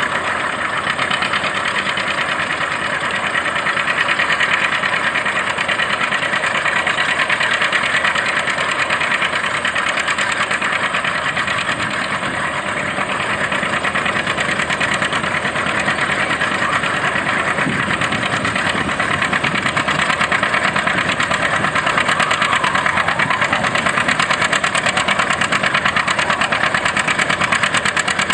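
Antique John Deere tractor engine running hard under load as it drags a weight transfer sled, a steady, rapid firing beat throughout.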